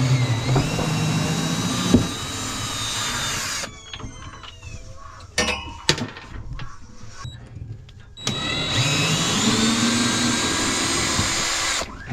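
Power drill running in two long bursts of about three and a half seconds each, its motor pitch rising as it spins up and then holding steady. A few sharp clicks and knocks fall in the pause between the bursts.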